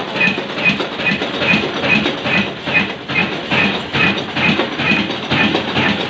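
Fine Mughal 22 HP slow-speed oil (diesel) engine running at about 275 rpm: a steady mechanical beat of a little over two strokes a second, matching one firing every second turn of the crankshaft.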